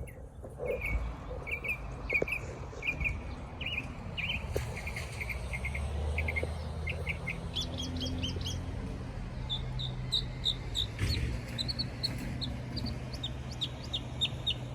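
A small songbird singing a long run of short, quick chirps, the notes shifting higher about halfway through, over a steady low rumble.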